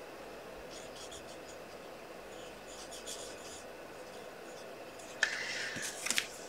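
Faint strokes of a small brush colouring on card stock, short scratchy rubs in two spells. Near the end comes a louder scraping rustle lasting about a second.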